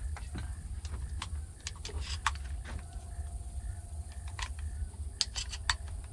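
Sharp metallic clicks and rattles of a shotgun being handled and reloaded, about a dozen at uneven intervals with a quick run of four near the end, over a low wind rumble on the microphone.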